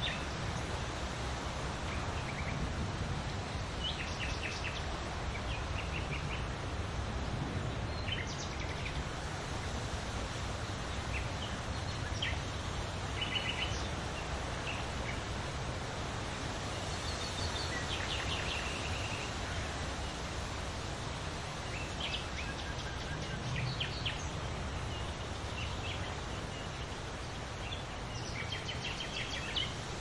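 Wind blowing through trees with leaves rustling, a steady noise with a low rumble underneath. Small birds chirp in short bursts every few seconds.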